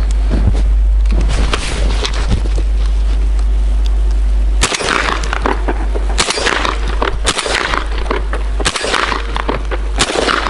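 Footsteps crunching through snow over a steady low wind rumble on the microphone. The crunches come about one every second and a half from about halfway in.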